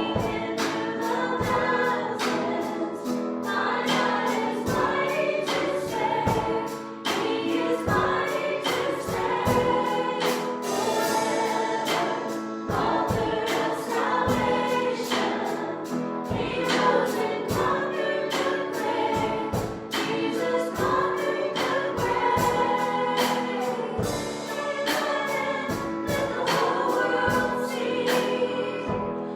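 Congregational worship song: voices singing together over band accompaniment with a steady beat.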